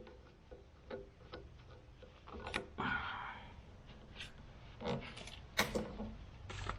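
Scattered clicks and knocks of tools and parts being handled while working on a car's power steering pump, with a short scraping rattle about three seconds in and a sharper knock near the end.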